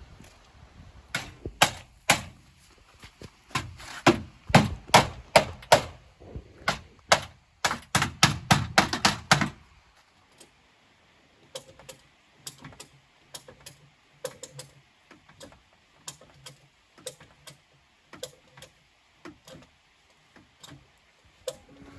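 A run of sharp, irregular clicks and knocks from hand work on a car's body panels and fenders. They come thick and loud for the first half, then sparser and quieter.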